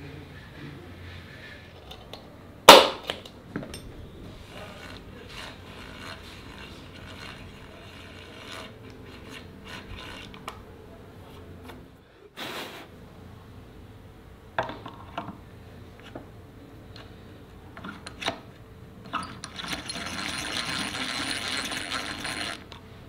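Hand-tool work on a workpiece: scattered small clicks and knocks of metal and wood being handled, with one sharp knock about three seconds in, then a steady rasping or scraping stroke of about three seconds near the end.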